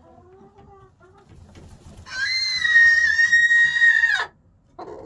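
Brahma rooster screeching: one loud, long, level-pitched call of about two seconds that drops off at the end. Soft clucks come before it and a short squawk after.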